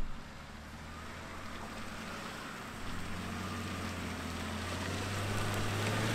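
Ineos Grenadier's engine running at low revs as the 4x4 crawls through deep mud, a steady low drone that slowly grows louder. A short thump right at the start.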